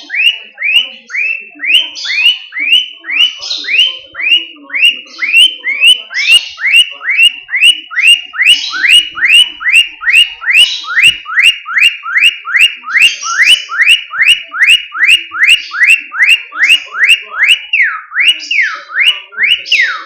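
Pet bird mimicking a car alarm: a long, fast run of loud rising whistled chirps, about two and a half a second, changing near the end to a few rising-and-falling siren-like sweeps.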